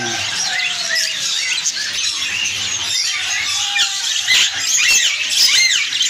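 Many caged finches chirping at once, a dense, busy chatter of short high chirps.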